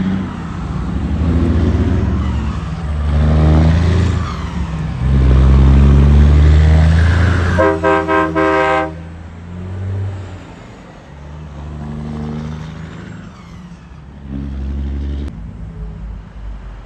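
Diesel semi trucks passing close by, their engine note swelling and loudest about six seconds in. About eight seconds in, a passing semi sounds its air horn in several short blasts lasting just over a second in all.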